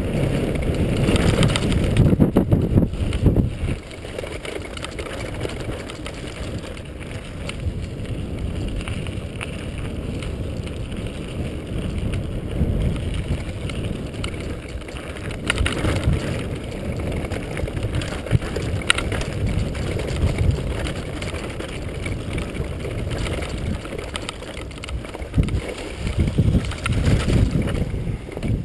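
Mountain bike riding fast down rocky, stone-paved and gravel singletrack, picked up by a microphone on the bike: a continuous rumble of tyres over stones with frequent rattles and knocks, loudest in the first few seconds.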